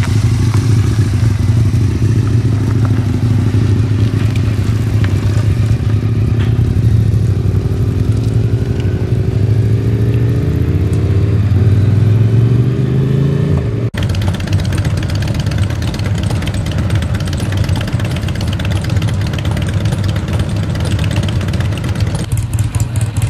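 Motorcycle engines running as bikes ride past, with one engine note climbing as it accelerates. Sudden change about two-thirds of the way in to a different, noisier mix of engine sound.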